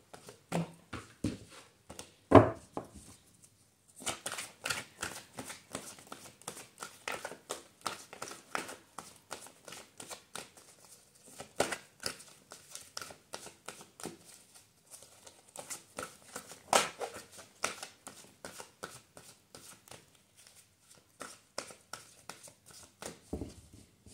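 A deck of tarot cards being shuffled by hand: a long run of quick, soft card slaps and flicks, with a few louder slaps about two, twelve and seventeen seconds in.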